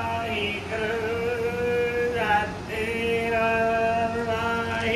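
Sikh devotional singing (kirtan): a voice holding long, steady notes, with short gliding breaks between phrases.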